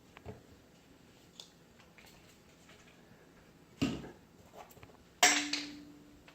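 Two sharp clattering knocks about a second and a half apart, from something hard striking a hard surface, with a few light ticks before them; the second knock is the louder and rings briefly.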